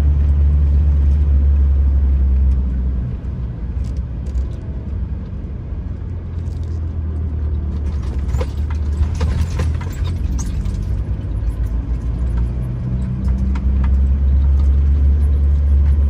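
Camper van driving, heard from inside the cab: a steady low engine and road drone that eases off about three seconds in and builds again near the end. A patch of clicks and crackle sounds in the middle.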